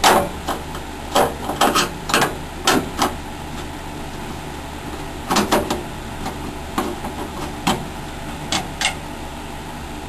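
A run of sharp, irregular metal clicks and knocks, bunched in the first three seconds and again from about five to nine seconds in: a screwdriver taking out the screws that hold the hard-drive bracket in a desktop PC's steel case.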